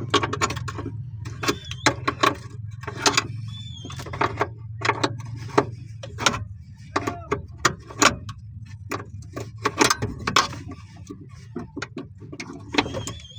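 Irregular metallic clicks and clinks of a 14 mm socket wrench and pliers working loose the nut on a car's clutch cable, over a steady low hum.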